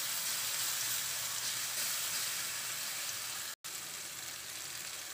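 Ground chili and shallot spice paste sizzling in hot oil in an aluminium wok as it goes in from a blender jar: a steady frying hiss. The sound drops out for an instant about three and a half seconds in.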